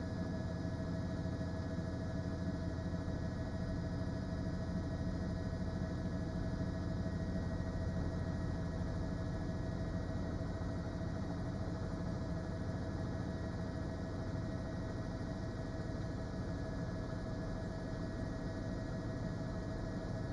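Steady droning hum with several held tones over a low rumble and no change throughout: the engine and rotor noise of the news helicopter filming the scene from above.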